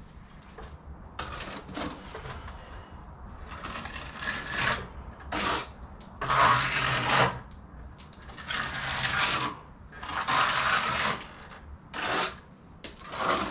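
Trowel scraping and spreading wet stucco for a ceiling patch's finish coat: a run of rough scraping strokes, each a second or less, about eight in all.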